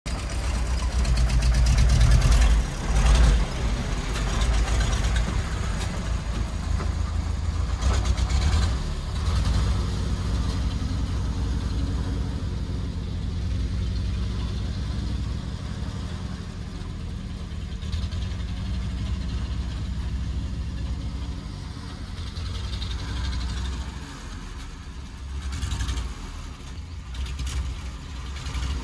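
Petrol-engined Robur truck's engine running as the truck drives slowly. It is loudest in the first nine seconds or so, then steadier and quieter.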